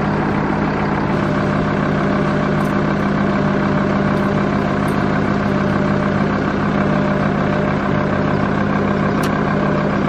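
An engine idling steadily, a loud, even drone that does not change.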